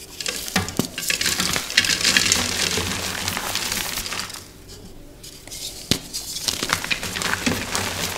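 Bare hands crushing and crumbling blocks of reformed gym chalk: dense, dry crunching and crackling with sharp snaps as the chalk breaks into powder, easing off for about a second midway.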